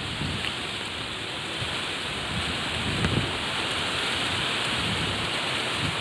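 Strong gusting wind rushing through palm fronds, with irregular low rumbles of gusts buffeting the phone's microphone. The rush builds slightly over the first couple of seconds.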